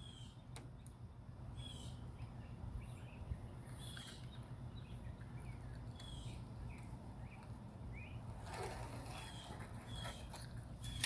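Small birds chirping outdoors, short chirps repeated every second or so, over a steady low hum, with a few faint clicks and a brief scrape near the end.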